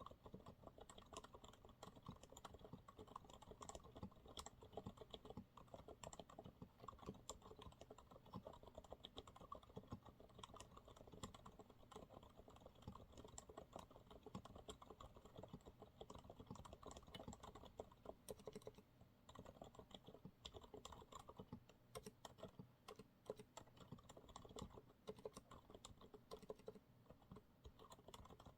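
Steady, continuous typing on a Monsgeek MG108W keyboard with TTC silent brown switches: a quiet, irregular stream of damped keystrokes.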